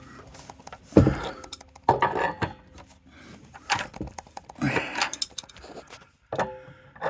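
A wrench clinking and knocking against a threaded metal pipe fitting as it is repositioned and tightened, a scattering of short metallic knocks.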